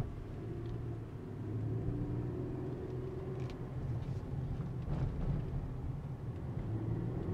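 Cab interior of a 2016 GMC Canyon pickup on the move: steady low engine and road rumble, growing louder about two seconds in.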